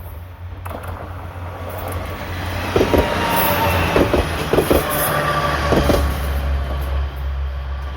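A two-car KiHa 40 diesel railcar set passing close by. The low diesel engine drone swells and stays loud, with a series of sharp wheel clacks over the rail joints in the middle as the cars go by.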